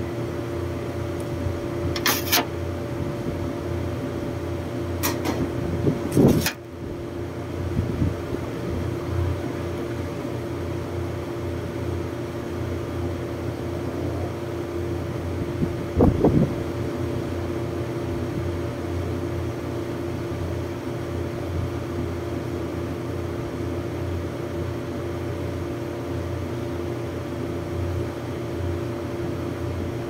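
Steady hum of running air-conditioning outdoor units, with two steady tones over a low rumble. A few sharp clicks and knocks of hands and tools on the unit's metal sound in the first several seconds, and once more about halfway through.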